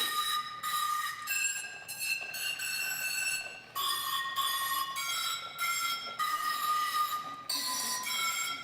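Struck bowls of a homemade dishophone ringing out a quick tune, high bell-like notes at about two or three a second with a brief break just before four seconds in.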